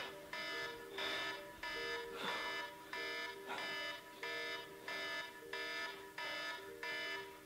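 Wake-up alarm ringing: a bright, repeating electronic chime pattern, a little more than one pulse a second, its notes changing from pulse to pulse like a short ringtone melody.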